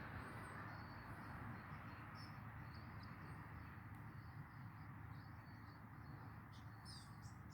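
Faint outdoor ambience: a low steady hum with scattered faint, short high chirps.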